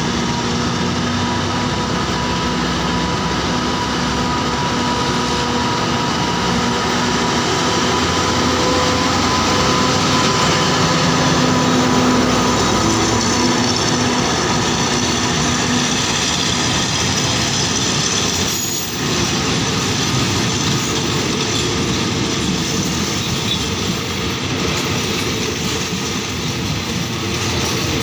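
Alsthom diesel-electric locomotive No. 4107, fitted with a Caterpillar engine, pulls a passenger train out of the station under power. Its engine drone, with steady tones, comes close and passes about halfway through. The passenger coaches then roll past on the rails with a steady rolling rumble.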